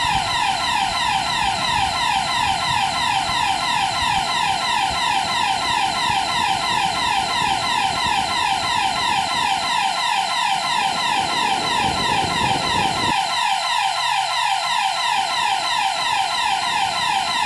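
Electronic siren wailing in fast, evenly repeated falling sweeps, about four a second. A low road-and-engine rumble from the moving car lies under it and drops away about two-thirds of the way through.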